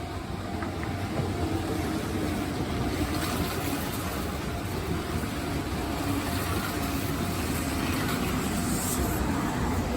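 Kintetsu electric train running through the station, a steady rumble of wheels and motors that grows gradually louder.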